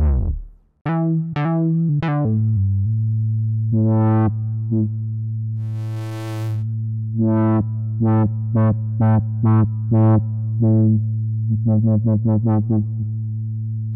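ROLI Equator "Funkmeister Bass" synth-bass preset played on a Seaboard Block: a held low bass note under short, repeated plucky stabs, with a quick run of notes near the end. A short burst of hiss comes about six seconds in, and the previous patch's note dies away in the first second.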